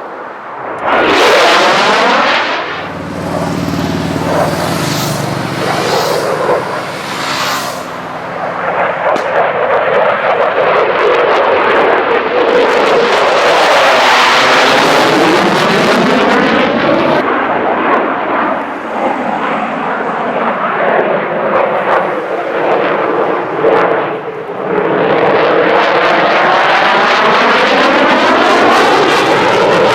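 F-16 fighter jet's single turbofan engine during a low, fast display, loud throughout. The sound jumps up about a second in as the jet comes close, then swells and sweeps in pitch as it passes and turns.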